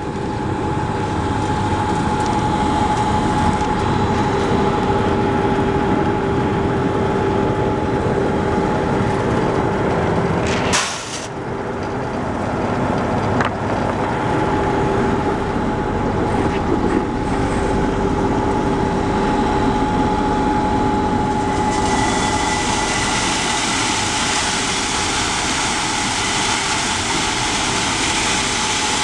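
Electric soybean and pea peeling machine running steadily: a constant motor-and-blower drone with two steady hum tones over a rushing noise. It dips briefly about a third of the way in, and a brighter hiss joins about three quarters of the way through.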